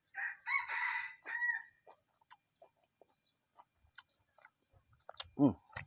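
A rooster crowing once for about a second and a half near the start, followed by soft, scattered mouth clicks of chewing. Near the end there is a short vocal sound that falls in pitch.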